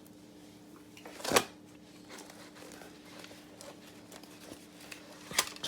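Rustling and brushing of a flame-resistant heat shield blanket being handled and laid over plastic, with a short louder swish about a second in and another near the end, over a faint steady hum.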